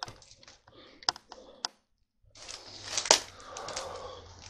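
Scattered sharp clicks and crunches of debris and broken wall material being stepped on and brushed past. After a brief gap there is denser rustling, with one louder crack about three seconds in.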